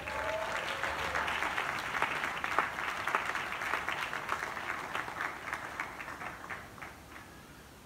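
Audience applauding, thinning out to a few scattered claps and stopping near the end.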